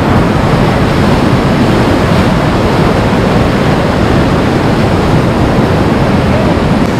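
Loud, steady rush of a muddy whitewater river rapid, heard from a kayak in the middle of the rapid.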